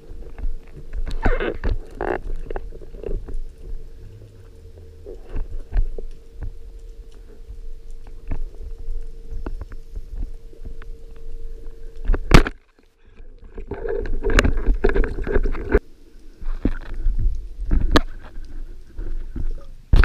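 Muffled underwater sound from a spearfishing dive: low gurgling water noise with scattered clicks and bubbly bursts. A steady hum, typical of a distant boat motor heard through the water, runs until about two-thirds of the way in and then stops.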